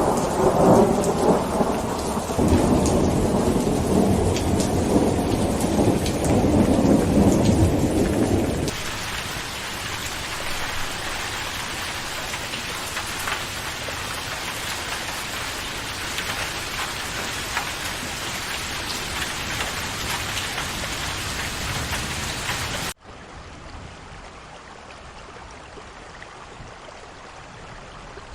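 Steady rain with a long rumble of thunder that dies away about eight or nine seconds in. Near the end it cuts off abruptly to quieter, duller rain, a splice between two rain recordings.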